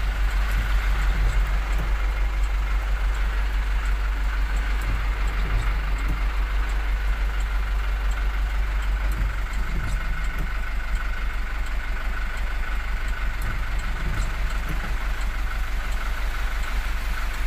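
Garbage truck's engine running with a steady low rumble, heard from inside the cab, with heavy rain on the windscreen.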